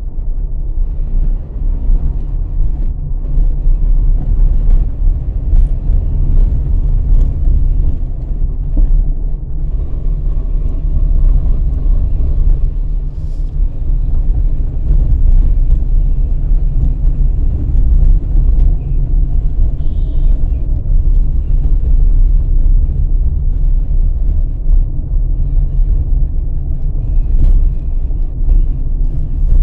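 A car driving along a city street, with a steady low rumble of road and engine noise.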